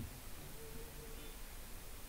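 Faint steady hiss of room tone and microphone noise, with no typing or other distinct sound.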